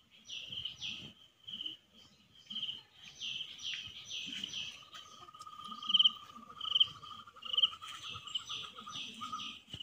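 Insects and birds chirping outdoors: short chirps repeating about once a second, joined about halfway through by a steady pulsing trill.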